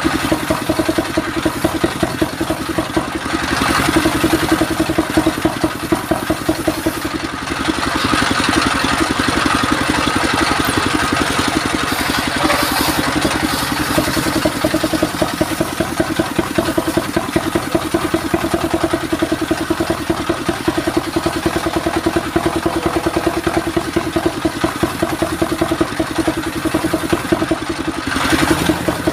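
Belt-driven sawmill circular saw running on its stationary engine, with fast, even engine pulses throughout. The noise of the blade ripping a mahogany board lengthwise swells a few times, longest through the middle, as the board is pushed through.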